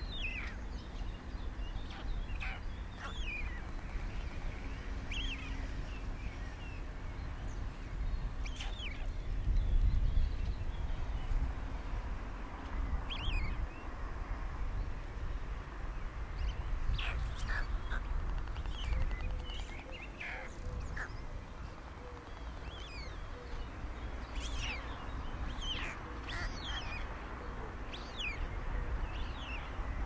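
Birds chirping: many short, quick calls scattered throughout, over a low rumble that swells about ten seconds in.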